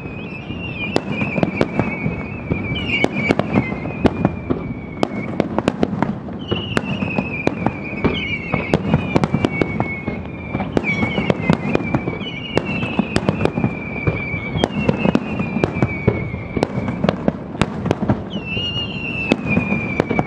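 Aerial fireworks shells going off in quick succession: many sharp bangs and cracks, with long whistles that each start high and fall slowly in pitch, coming every two to three seconds.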